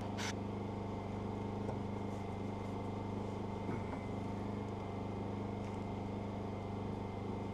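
Steady low hum of running machinery, even throughout, with one short click just after the start.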